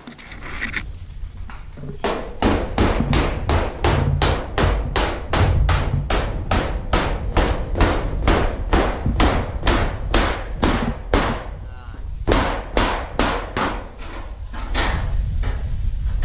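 Hammer nailing down a corrugated metal roofing sheet: a rapid, even run of strikes, about three a second, starting a couple of seconds in, with short breaks near the end.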